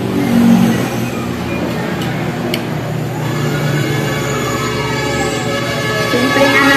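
Highway traffic running past, then a siren wailing from about halfway through, its pitch sliding down and then up again while it grows louder.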